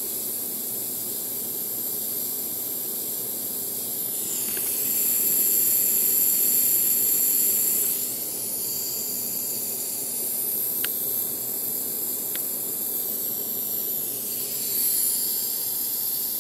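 Small handheld blowtorch flame hissing steadily, a little louder for a few seconds in the middle.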